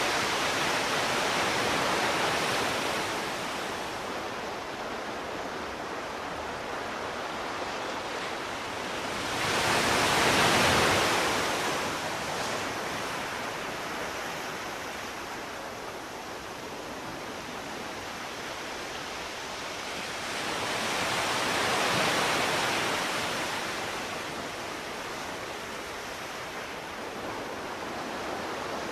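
Sea waves breaking on a shore: a steady rush of surf that swells three times, near the start, about ten seconds in and about twenty-two seconds in, the middle wave the loudest.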